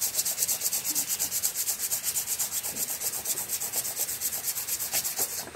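A water-pump part rubbed by hand on sandpaper in quick, even back-and-forth strokes, sanding its face clean and flat. The strokes stop right at the end.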